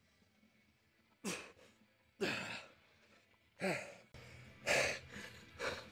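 A man breathing hard after a heavy set of dumbbell presses: five loud, sighing exhales, each falling in pitch, about one a second.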